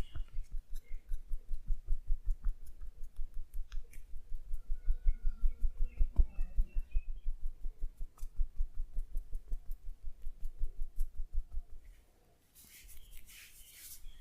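Rapid rhythmic tapping massage strokes landing on the body, dull thumps at about five a second that stop about twelve seconds in, followed by faint rustling.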